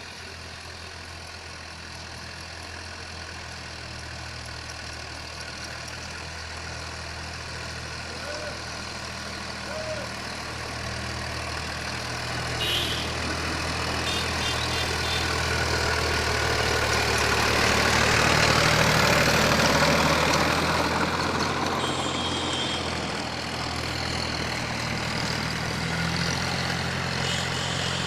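Tractor engine running steadily, growing louder toward about two-thirds of the way through, then easing off a little.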